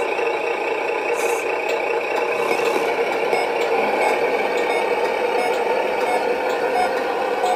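Simulated diesel truck engine sound from a GT Power sound module, running steadily through the RC truck's small speaker with almost no bass.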